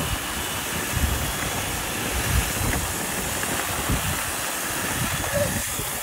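Several robot vacuums (iRobot Roombas and a eufy) running together: a steady whir and hiss from their suction fans and brushes, with uneven low rumbling underneath.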